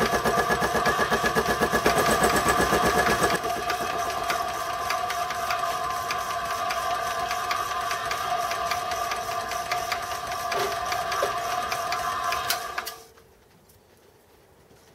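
A homemade Gingery milling machine runs a milling cut, with a steady whine over a fast, even clatter. It is louder for the first three seconds or so, then steadies, and cuts off sharply about thirteen seconds in as the machine is switched off.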